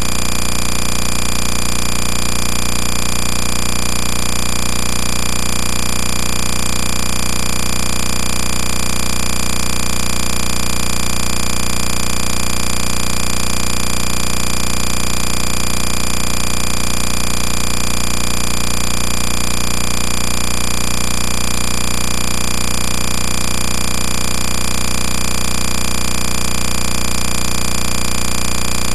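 A steady, unchanging mechanical whirr with a fast, even rattle, at a constant level throughout.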